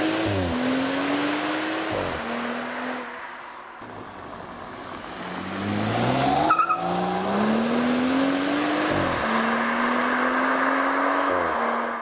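BMW M135i's turbocharged N55 3.0-litre straight-six accelerating hard through the gears, its note climbing and then dropping at each quick upshift. It fades briefly partway through, then pulls again, with a short sharp crackle at one shift.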